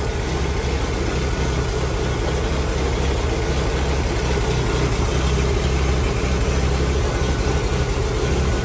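Willys M38 Jeep's Go-Devil four-cylinder flathead engine idling steadily with an even low rumble.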